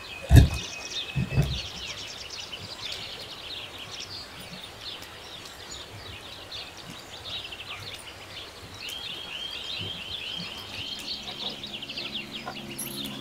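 Small birds chirping and singing continuously. About half a second in there is a heavy thump, followed a moment later by a couple of lighter knocks: a knife blade pressed and struck flat onto garlic cloves on a wooden board. Music comes in near the end.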